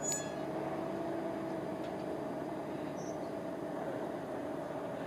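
Steady, quiet outdoor background hiss with a faint low hum, and a short high-pitched electronic blip right at the start.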